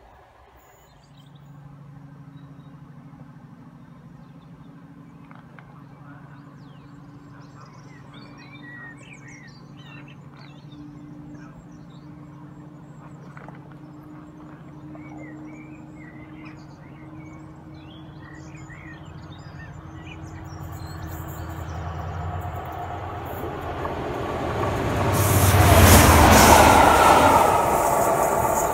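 Class 68 diesel-electric locomotive with a single coach approaching: a steady engine drone that grows louder, then a loud rush of the train passing close about 25 seconds in and fading as it goes. Birds chirp faintly during the approach.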